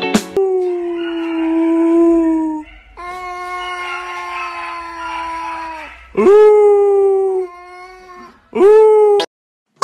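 Tabby cat yowling in long, drawn-out wails. Two long, steady cries of two to three seconds each are followed by two shorter, louder ones near the end.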